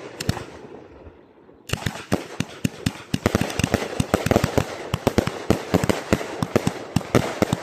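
Firework cake (multi-shot battery) going off: a hiss at first, then, from under two seconds in, a rapid, continuous string of sharp cracks and pops, several a second.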